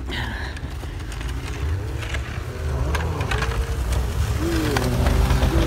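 Snowmobile engine running as the machine comes closer and passes by, getting louder toward the end, its pitch rising and falling.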